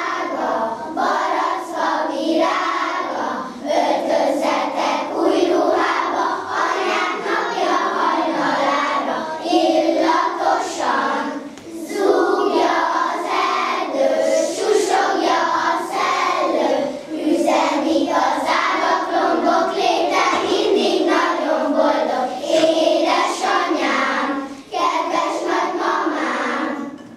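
A class of first-grade children singing a song together as a group, their voices sustained and steady in pitch. The singing stops right at the end.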